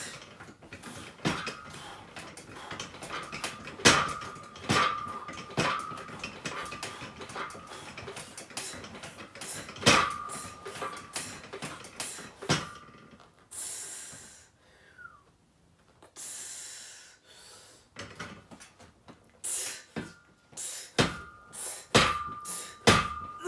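Metal weight plates and the steel frame of a home bench's leg attachment clanking with each rep, many of the knocks leaving a short metallic ring. In the middle the clanks stop for two long, hard breaths, then pick up again and come faster near the end.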